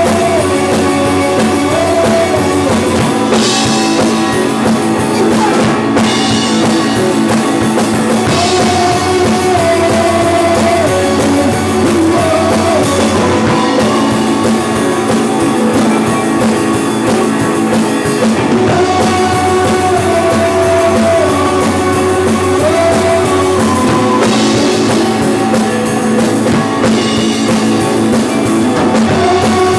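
Live rock band playing loud: two electric guitars over a drum kit, with a melodic phrase that comes round again every five or six seconds.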